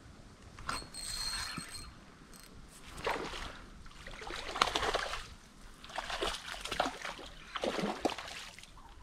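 Spinning reel whirring in bursts as line is cranked in, with a hooked bass splashing and thrashing at the water's surface near the end.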